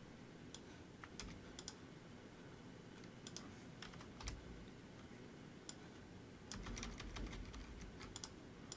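Faint, scattered keystrokes on a computer keyboard, with a quicker run of keys about six and a half seconds in.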